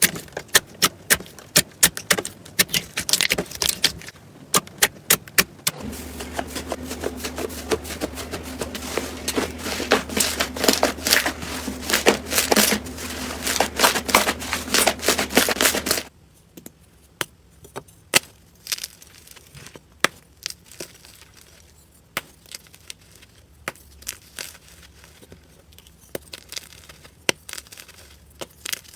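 Slime being squeezed and poked by hand, giving rapid crackling and clicking pops. The pops are densest and loudest through the middle, then turn sparse and quieter in the last part.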